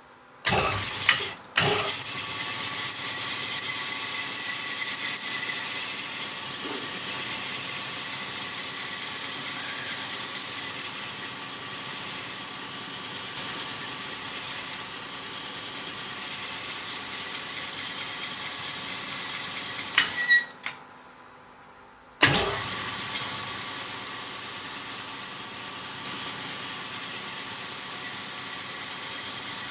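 Cylinder-honing machine running with its stones cutting in a Perkins 248 block's liner bore, taking out about another thou: a steady high-pitched whine over a rubbing hiss. It starts about half a second in, stops for about two seconds near the end, then starts again.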